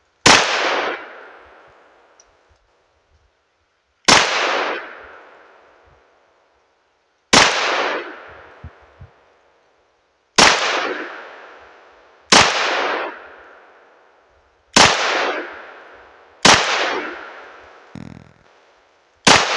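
Glock 43X 9mm pistol firing 115-grain coated lead round-nose rounds: eight single shots, slowly paced a few seconds apart, each trailing off in a long echo.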